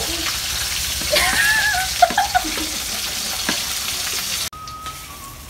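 Banana pieces frying in hot oil in a wok: a steady sizzle with a few light clicks, cutting off abruptly about four and a half seconds in.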